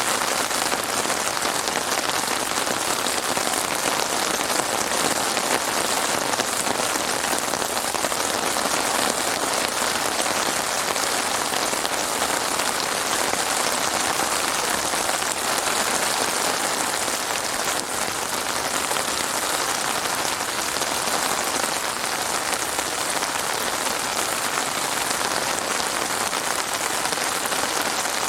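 Heavy rain falling steadily, an even dense hiss of drops on surfaces with no thunder.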